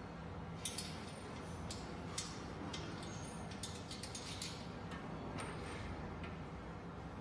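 Small scattered metal clicks and taps of bolts, nuts and washers being fitted by hand into a steel bench frame, over a steady low hum.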